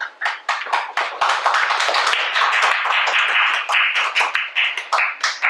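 Audience applauding: a few scattered claps at first, filling out within about a second into steady applause that stops abruptly just before the end.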